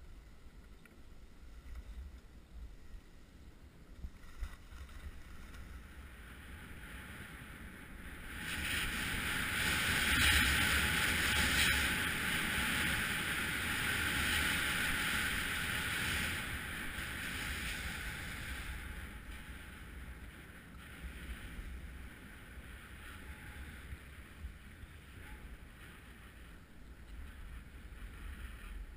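Skis sliding over packed snow, a steady hiss with wind rumbling on the microphone; the hiss swells louder for several seconds in the middle, then eases back.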